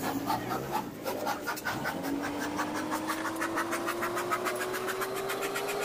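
A small motor running with a rapid, even ticking of about six beats a second and a hum that slowly rises in pitch.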